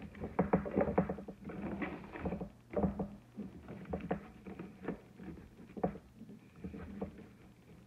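Wired fabric ribbon rustling and crinkling as hands pull a bow tight and shape its loops, with many irregular small clicks and scratches. It is busiest in the first few seconds and thins out near the end.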